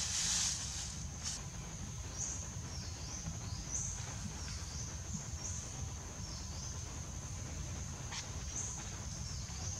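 Steady high-pitched insect drone, rising in a short swell about every one and a half seconds. In the first second or so, dry rustling of bundled straw being handled.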